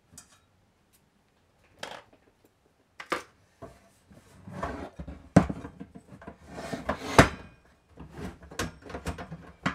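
The sheet-metal case of a Berges Compact 4 kW inverter being handled and turned over on a wooden workbench. A few light clicks come first, then from about four seconds in a run of knocks and scrapes, with two sharp knocks.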